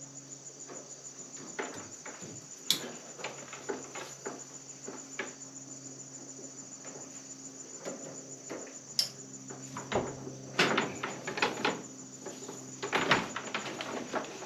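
Scattered clicks and knocks of solar panel cables and their plug connectors being handled and pushed together, more frequent from about ten seconds in. Behind them is a steady, high-pitched chorus of crickets.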